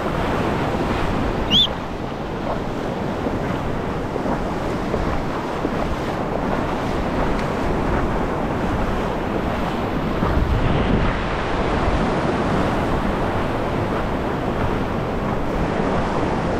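Shallow surf washing and breaking, with wind on the microphone. One short high chirp about a second and a half in.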